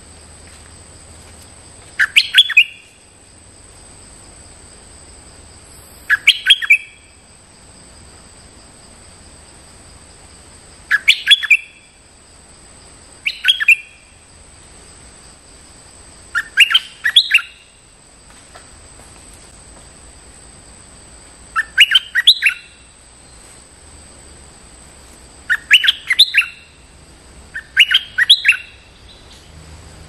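Caged bulbul (Thai nok dok taeng, Malay merbah lekir) singing short, bubbly phrases of a few quick notes, eight times at intervals of two to five seconds. This is a luring call aimed at a wild territorial bird of its kind. A faint, steady, high-pitched drone sits underneath.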